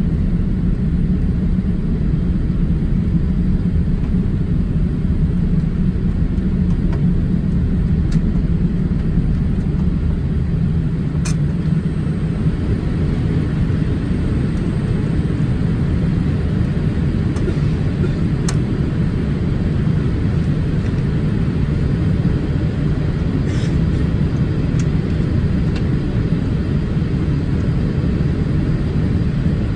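Cabin noise inside a Boeing 787-8 airliner during descent: a steady low rumble of the engines and airflow, heard from a seat over the wing.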